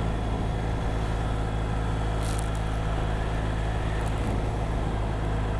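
Triumph Bonneville parallel-twin engine running steadily at cruising speed, under a rush of wind noise.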